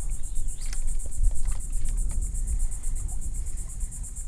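Steady, high-pitched insect trill pulsing rapidly, over a low rumble.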